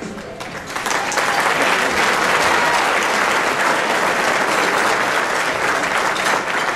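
Audience applauding, swelling up about a second in, holding steady, and easing off near the end.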